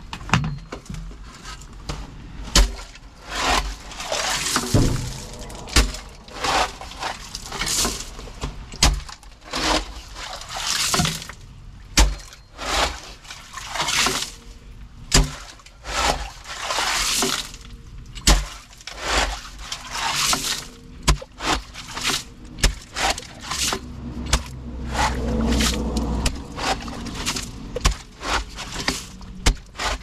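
A post-hole digger's metal blades driven again and again into wet gravel, making irregular sharp crunching strikes with scraping and grinding of stones between them.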